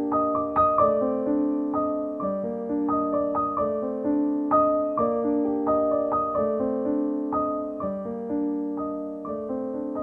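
Background piano music: a slow melody of single struck notes, about two a second, each ringing on over lower held notes.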